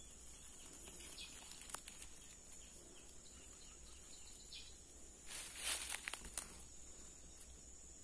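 Faint outdoor scrub ambience with a steady high insect drone. About five and a half seconds in, a brief rustle of leaves and twigs with a few sharp snaps as the camera is pushed through the bushes.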